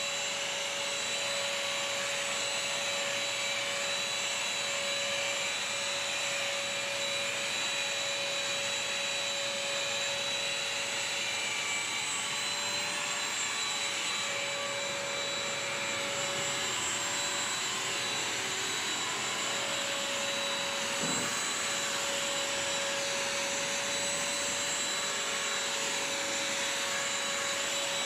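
BISSELL Crosswave wet/dry vacuum-mop running steadily, its motor holding an even whine as it scrubs and sucks up a wet spill from a tile floor.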